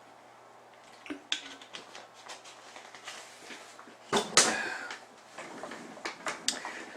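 A person sipping water from a glass or bottle: faint clicks and small swallowing sounds, with one short, loud breathy sound about four seconds in.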